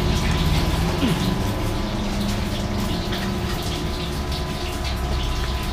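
Steady roadside street noise, a low traffic rumble under a hiss, with scattered light clicks.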